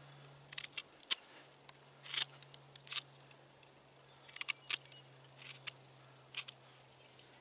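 Swiss Army knife's small saw blade cutting into a green willow stick, in short, irregularly spaced strokes, some in quick clusters of two or three.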